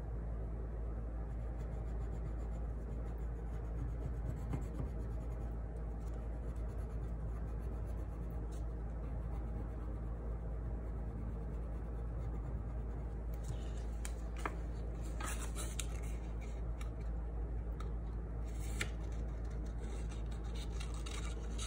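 Wax crayon rubbing back and forth on paper, then, over the last third, scissors snipping through paper in short cuts. A steady low hum lies under it all.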